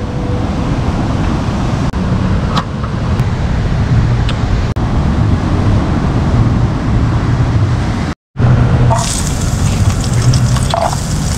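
Surf rolling in on the beach with wind on the microphone: a loud, steady rushing noise, heaviest in the low end. It cuts out briefly about eight seconds in and comes back hissier.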